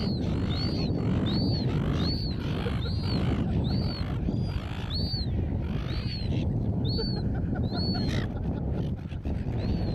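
Gulls calling, a high call repeated about every two-thirds of a second that stops about 8 seconds in, over wind rumbling on the microphone.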